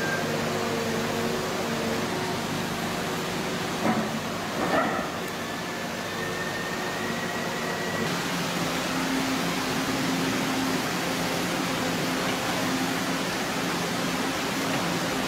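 Walking excavator's engine and hydraulics running steadily, a constant mechanical drone with a couple of short knocks about four and five seconds in and a faint rising whine just after.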